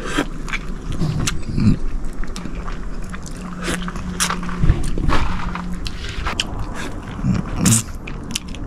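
Wet biting, sucking and smacking as a man eats a juicy ripe mango straight from the skin, in many short clicky mouth noises, with a couple of brief hums of the voice in between.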